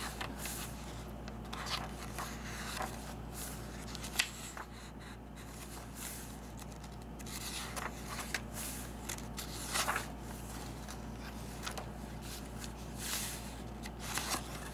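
Paper pages of a handmade journal being turned and handled by hand: irregular rustles and swishes, with a few louder page turns.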